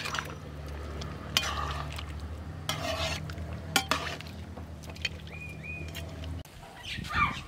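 Metal spatula stirring a large pot of simmering pork and radish curry, with scattered scrapes and clinks against the pot. A steady low hum runs underneath and stops about six and a half seconds in.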